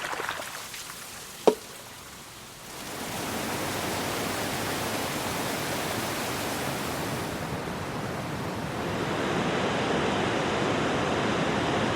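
Waterfall water rushing as a steady noise. The first recording fades out over the opening couple of seconds, with one sharp click about a second and a half in. A fuller recording of falling water then fades in about three seconds in and runs steady, growing a little louder near the end.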